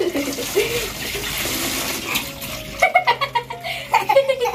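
Water pouring from a pipe into a shallow concrete pool, with children splashing in it. Children's voices and laughter come in during the second half.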